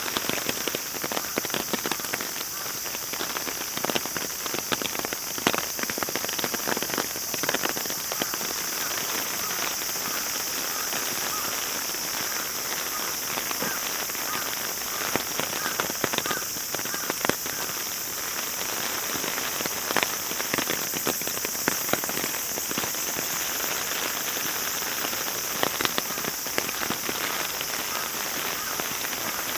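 Steady heavy rain falling, with many sharp, irregular drop hits close by over the constant hiss.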